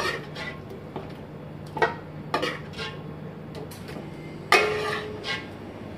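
A metal spoon scraping and knocking against stone-coated non-stick pots as chicken in gravy is scooped from one pot into the other: a string of separate scrapes and clinks, the loudest about four and a half seconds in, over a low steady hum.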